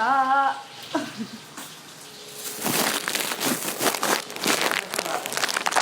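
Dried milkfish (daing na bangus) frying in hot oil: from about two and a half seconds in, a dense, loud crackling and spattering. A shouted voice is heard at the very start.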